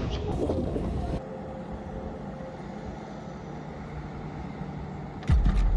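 Machinery engine running, cut off abruptly about a second in, leaving a quieter steady rumble. Near the end a loud low-pitched sound starts suddenly, with several sharp clicks.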